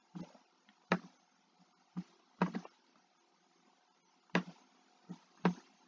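Computer mouse clicking: several short, sharp clicks at uneven intervals, with near silence between them.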